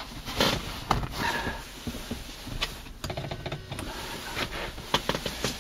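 Electric headrest height-adjustment motor of a Mercedes-Benz W202 running in short stop-start spells, driving the headrest's rack through its gear with irregular clicking and rattling. It sounds a little bit noisy.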